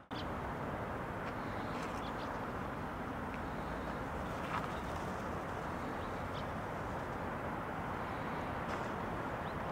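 Outdoor street ambience: a steady rush of distant traffic, with a few faint, short bird calls over it.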